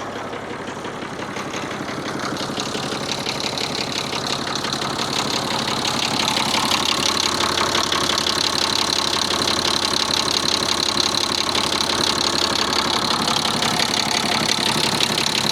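Ford 4000 tractor engine idling steadily with a fine rapid clatter, growing louder over the first several seconds, then holding. It is running on its first test of a freshly filled coolant system.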